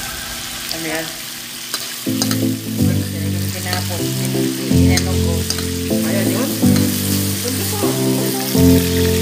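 Sliced onions and garlic sizzling in an aluminium wok, stirred with a metal ladle that clicks and scrapes against the pan. Background music with a steady beat comes in about two seconds in and is louder than the frying.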